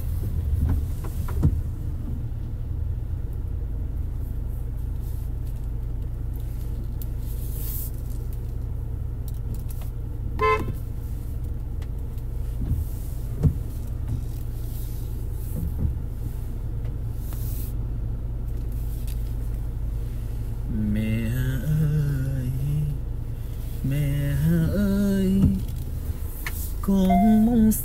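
Steady low rumble of a car's engine and road noise heard from inside the cabin while driving, with a couple of faint clicks. From about 21 seconds in, a singing voice carries a melody in a few held notes over the rumble.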